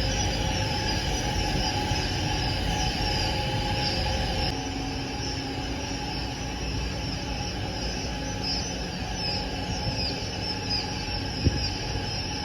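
Many newly hatched Japanese quail chicks cheeping, a dense overlap of high peeps over a steady machine hum. The background drops a little about four and a half seconds in, and there is one short knock near the end.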